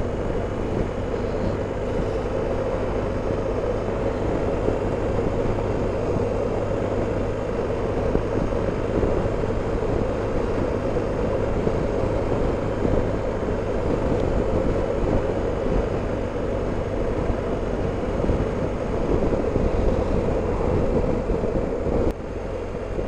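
Steady wind rush and road noise while a BMW R 1250 GS Adventure is ridden at a steady speed, with its boxer-twin engine running underneath. The noise drops suddenly about a second before the end.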